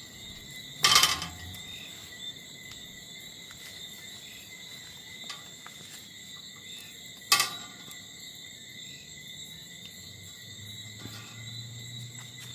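Steady chorus of night crickets, with two sharp knocks, about a second in and again about seven seconds in.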